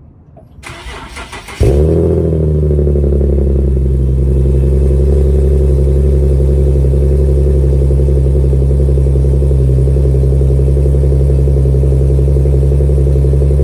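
Infiniti G37S's 3.7-litre V6 with an ARK GRIP exhaust being started: a second of starter cranking, then the engine catches with a loud flare that drops back within a second or so into a steady idle. The exhaust has leaks at the flex pipe and the mid pipe.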